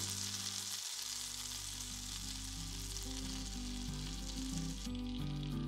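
Butter and oil sizzling in a frying pan, a steady crackling hiss that eases slightly near the end; the butter is still sizzling, so it is not yet ready for the onion. Soft background music plays underneath.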